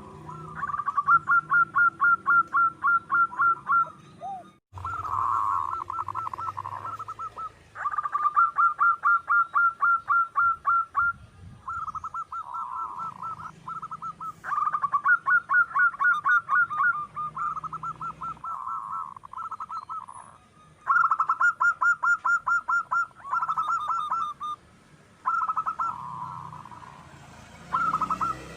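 Zebra dove calling: runs of rapid, evenly spaced notes, each run lasting about two to three seconds, with short pauses between runs.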